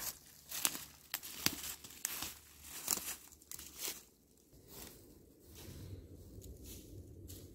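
Footsteps crunching and rustling through dry fallen leaves on a forest floor, a step every half second or so. They stop about four seconds in, leaving a steady low rumble.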